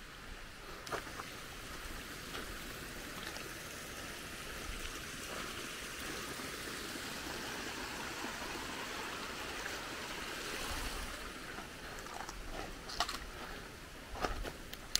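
Water running steadily in a stream, an even rushing hiss, with a few light clicks near the end.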